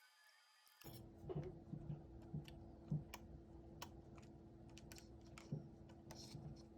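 Light, irregular clicks and taps of fingers handling the radio's plastic housing and ribbon cable connectors, over a faint steady hum.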